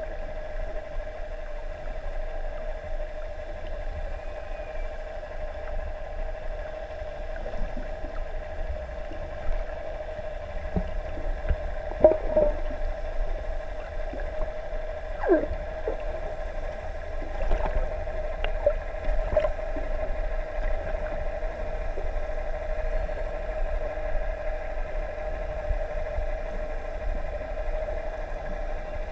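Underwater recording of a boat's engine humming steadily. Over the hum come a few short calls from humpback whales, near 12 and 15 seconds in and again a few seconds later, one of them a clear downward sweep.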